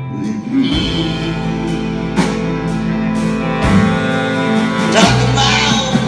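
Live band playing: guitars and a drum kit with sustained chords, a singing voice, and strong drum hits about every second and a half.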